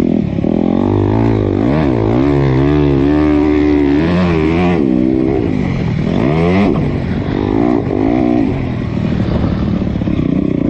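Honda CRF250 dirt bike's single-cylinder four-stroke engine under riding load, revving up and down repeatedly, its pitch climbing and dropping every second or so through the bends, then holding steadier and lower over the last few seconds.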